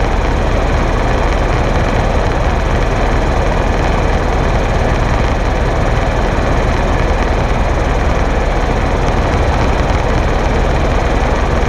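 Helicopter in flight: loud, steady rotor and engine noise heard from outside the side of the cabin.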